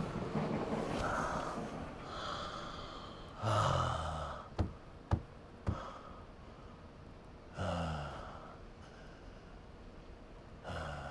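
A man gasping and breathing heavily, each breath out carrying a short falling groan, about every three to four seconds. Three sharp clicks come in quick succession around the middle.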